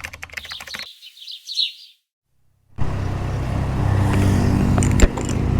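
Birds chirping briefly, then after a short silence a motorcycle engine starts to be heard running steadily about three seconds in.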